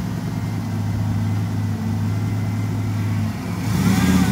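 Pickup truck engine running steadily at low revs. About three and a half seconds in it grows louder and a rushing noise joins it.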